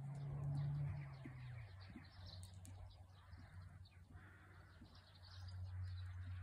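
Small birds chirping and twittering, with a low steady hum underneath that drops in pitch about a second and a half in and grows louder near the end.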